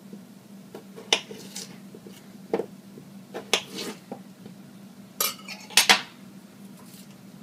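A metal butter knife clinking and tapping against a cooktop and dishes while a stick of butter is cut into chunks: about half a dozen separate sharp clicks, the loudest pair near the end, over a steady low hum.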